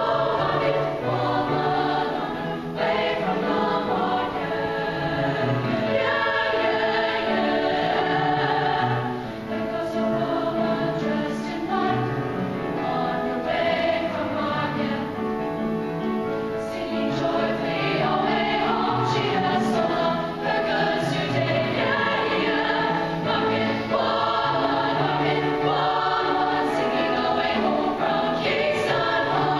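Girls' treble choir singing in parts, accompanied by an upright piano.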